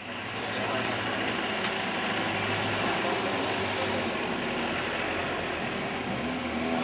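Motor vehicle engine running at low speed, under a steady, even rushing noise.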